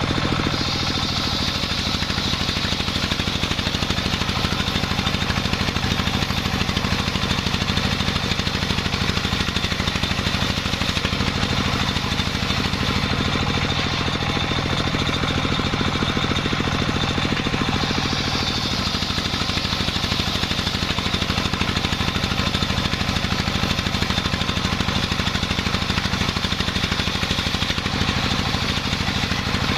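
Engine-driven sawmill running steadily, with a high hiss that comes in about half a second in, fades about halfway through and returns later.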